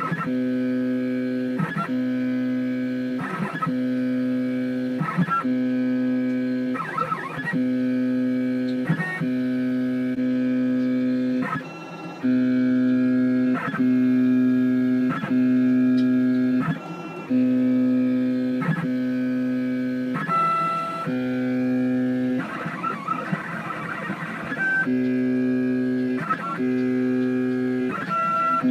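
Stepper motors of a homemade CNC machine moving a pen plotter head, a steady pitched hum that breaks off and picks up again every second or two as the moves change, with a rougher, buzzier stretch about 22 seconds in.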